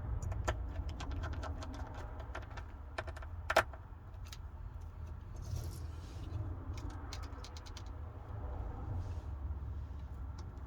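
Quick small clicks and taps from tools and small parts being handled while a smartphone is reassembled, thickest in the first few seconds with one sharper click about three and a half seconds in, over a low steady hum.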